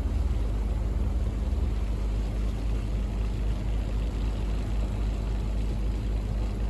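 Small powerboat's engine running steadily under way, a constant low drone with a rushing noise of wind and water over it.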